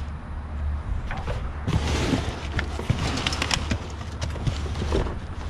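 A quick run of sharp clicks and rattles, densest from about two to four seconds in, over a steady low rumble.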